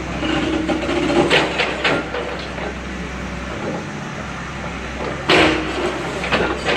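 Earthmover's diesel engine running steadily, with several sharp knocks and clanks at about 1.5, 2 and 5.5 seconds in, typical of demolition work.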